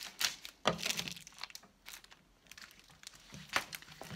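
Paper and plastic wrapping of a diamond-painting kit rustling and crinkling as it is handled, in a series of short, irregular rustles.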